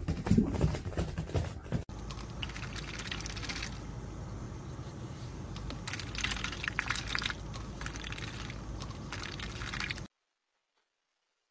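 A duck dabbling its bill in a plastic cup of water: short bursts of splashing and clicking over a steady low background hum, ending abruptly near the end.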